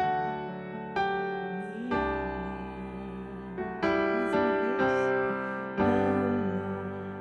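Piano-sounding keyboard playing slow, held chords, a new chord struck every second or two and left to ring and fade: the accompaniment to a slow gospel worship song.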